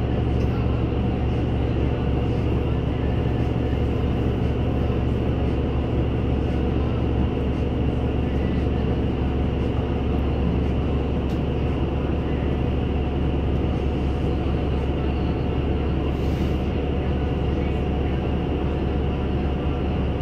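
NefAZ-5299-40-52 city bus running along the road, heard from inside the cabin: a steady engine hum over the low rumble of tyres and body noise.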